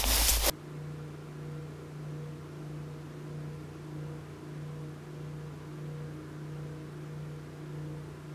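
A loud rush of noise with a low rumble cuts off abruptly about half a second in. A steady low hum with faint higher overtones follows.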